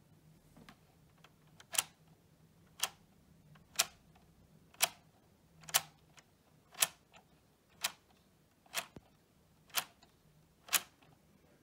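Ten sharp, evenly spaced ticks about one second apart, starting about two seconds in, over a faint low hum.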